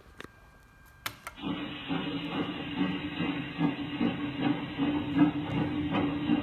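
Clicks of a push button on an interactive museum game, then the game's small speaker plays a recorded steam train sound effect: a steady tone with a regular pulsing beat that stops abruptly near the end.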